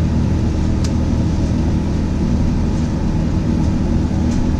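Steady cabin drone of an Airbus A380-861 in flight: engine and airflow noise heard inside the cabin, with strong low hum. A faint click about a second in.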